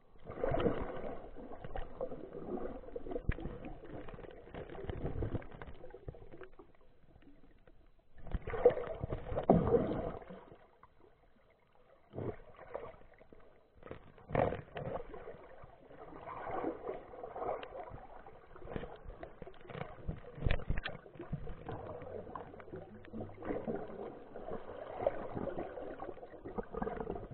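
Muffled underwater water noise, sloshing and bubbling against a waterproof camera housing as a freediver swims, in irregular surges with quieter gaps and a few sharp knocks.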